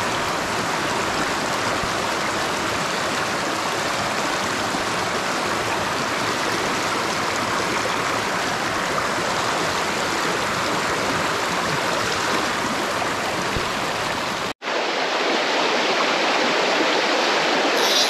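Shallow mountain creek rushing over rocks, a steady water noise recorded just above the surface. A cut near the end breaks it for an instant, and the creek carries on with less low rumble.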